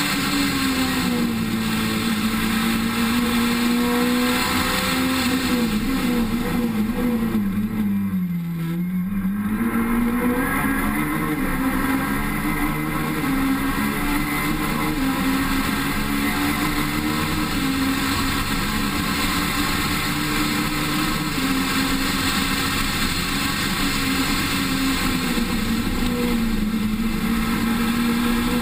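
A rally car's engine is heard on board at speed, holding a steady high note. About eight seconds in, the note drops as the driver lifts off, then it rises again as the car accelerates back up to speed. Wind and road noise run underneath.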